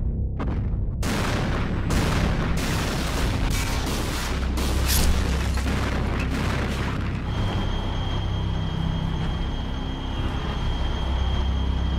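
Explosion and boom sound effects over music with a heavy low rumble: a few sharp hits in the first second, then a long rushing blast with a louder hit about five seconds in. A thin high steady tone joins about seven seconds in.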